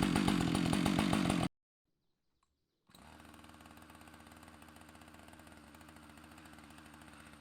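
A chainsaw run in a portable chainsaw mill runs steadily and loudly, then cuts off abruptly about one and a half seconds in. After a second or so of silence, a much fainter, steady engine sound with an even pulse continues.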